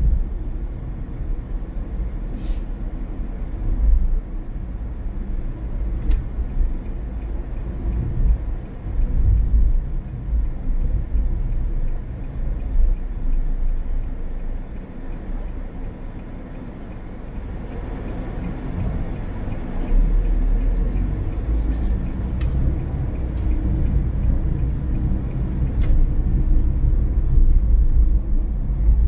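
Car driving along a road: steady low tyre-and-engine rumble, with a few faint clicks.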